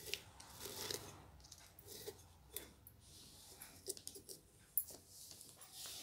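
Dry coconut fibre (coir) crackling and rustling as it is stuffed by hand into the opening of a clay pot, in irregular scratchy bursts.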